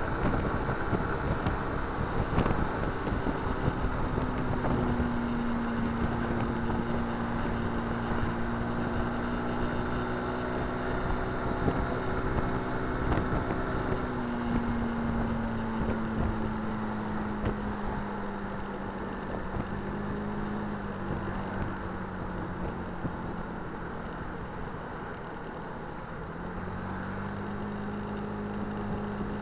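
A vehicle engine drones steadily at cruising speed under road and wind noise. Its pitch sinks slowly through the second half, then jumps back up a few seconds before the end.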